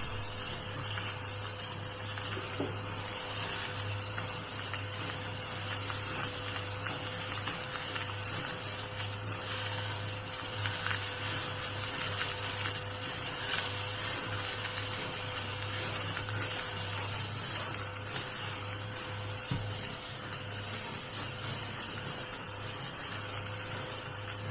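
Battery-powered desktop vacuum cleaner running steadily, its small high-speed fan motor giving a constant whine with a crackle of fine clicks over it.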